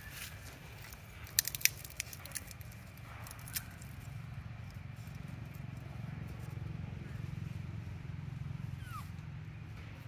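Steady low rumble of distant road traffic, swelling for a few seconds past the middle. A quick cluster of sharp crackling clicks comes about a second and a half in, with a couple more soon after, and a short falling squeak sounds near the end.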